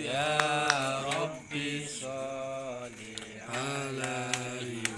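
A man's voice chanting in long, drawn-out held tones, three phrases with short breaks between them.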